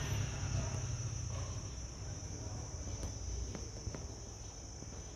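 Steady high-pitched chirring of crickets, with a low hum underneath and a few faint ticks around the middle.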